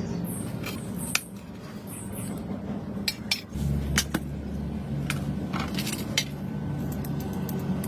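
Light, scattered clicks and clinks of small tools and parts being handled on a work surface during earbud repair work. About eight separate ticks are heard, and a low steady hum starts about halfway through.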